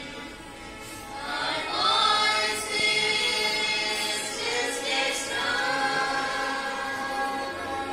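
A group of children singing together in chorus, holding long notes that change every second or two.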